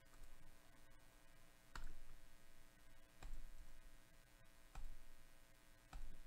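Computer mouse clicking: four single clicks about a second and a half apart, over a faint steady hum.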